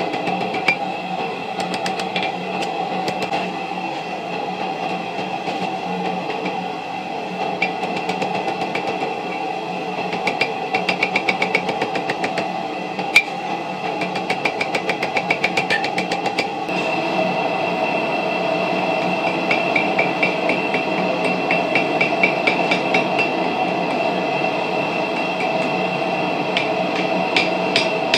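Hammer striking a red-hot railroad spike on an anvil in quick runs of blows, about four a second, over a steady droning hum.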